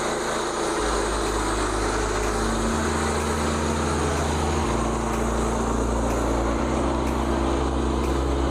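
Portable band sawmill's small gasoline engine running steadily under load as the band blade cuts through a white pine log.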